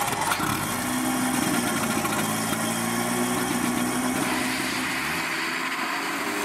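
Rotary (Wankel) engine of a Soviet VAZ 2108 idling steadily.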